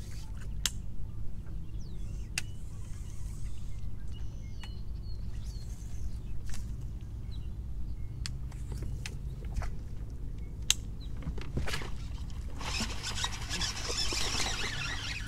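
Steady low rumble with faint bird chirps and a few sharp clicks. About three-quarters of the way through, a rushing hiss comes in and lasts a few seconds.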